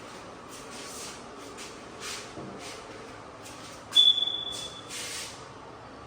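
A single high, steady electronic beep from a smoke detector, just under a second long, about four seconds in. Around it, footsteps scuff across a hard floor about twice a second.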